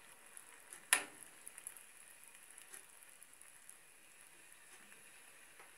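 A pot of broth simmering faintly on a gas stove. A metal ladle knocks once against the pot about a second in, followed by a few small ticks.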